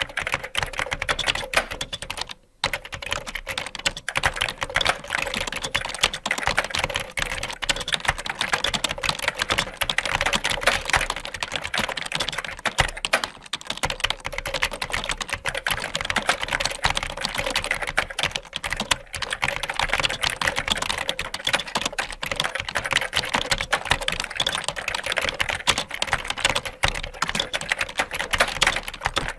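Fast, continuous typing on a computer keyboard: a dense run of key clicks, with a brief pause about two and a half seconds in.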